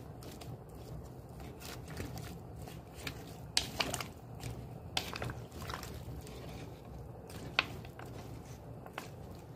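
Spoon stirring a pot of hare stew with potatoes and carrots: a few wet scrapes and short knocks against the pot, the loudest about three and a half seconds in, over a steady low hum.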